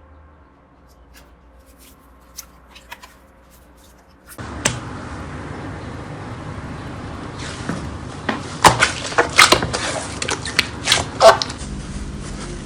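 Slime being squished and pressed by hand: faint scattered clicks at first, then from about eight seconds in a run of loud, sharp sticky pops and clicks over a steady hiss that comes in about four seconds in.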